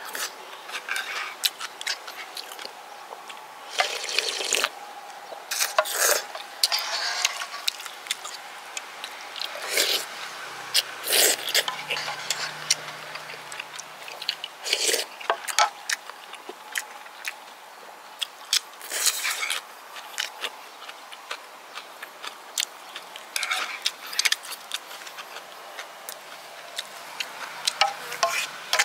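Close-up eating sounds of a person having rice soup: wet chewing and lip-smacking clicks, with repeated short slurps of broth and a wooden spoon scooping in the pan.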